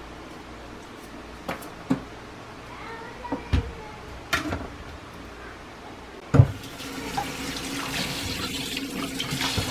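A knife knocking against a plastic cutting board in a few separate strokes while bamboo shoots are cut. After a louder knock about two-thirds of the way through, a kitchen tap runs steadily into a stainless steel sink.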